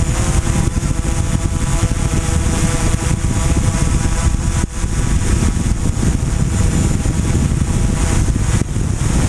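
DJI Mavic Pro quadcopter hovering on Mavic Pro Platinum low-noise propellers: a steady, loud whir from the four rotors, with several steady tones in it over a dense rushing noise.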